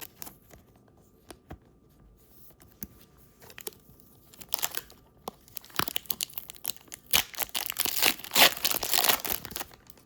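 Foil wrapper of a Pokémon booster pack crinkling and tearing open: a few light clicks at first, then dense crinkling from about four and a half seconds in, loudest near the end.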